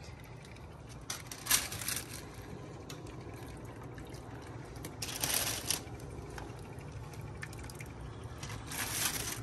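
Broth dripping and splashing off boiled chicken pieces as tongs lift them out of a pot, in three short splashy bursts.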